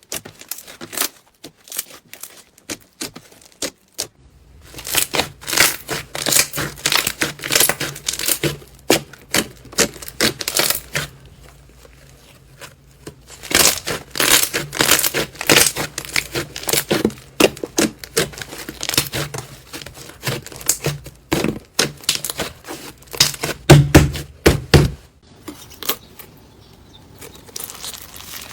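Slime being handled: pressed, poked and stretched by hand, giving dense runs of crackling clicks in spells with short pauses. A low steady hum runs beneath most of it.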